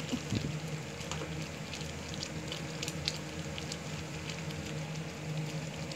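Bihon rice noodles in sardine sauce simmering and sizzling in an aluminium pan, with many small pops and bubbles, as a wooden spatula stirs them. The sauce is being cooked down until no liquid is left.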